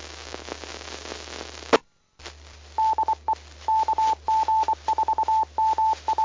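Two-way radio receiver hiss that cuts off with a squelch click, then an amateur radio repeater's Morse-code identifier: a single steady tone beeping in short and long elements.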